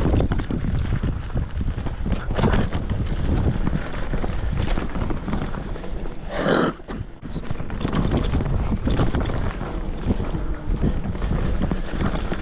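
Wind buffeting the microphone over the rumble and rattle of a mountain bike riding down a dirt trail, with a brief hiss about six and a half seconds in and a short dip in level just after.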